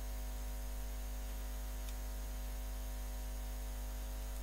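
Steady electrical mains hum and hiss picked up by the recording microphone: a low drone with a row of steady higher tones above it.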